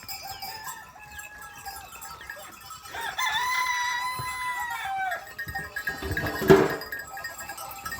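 A rooster crowing once, about three seconds in: one long call that rises, holds, then falls away over about two seconds.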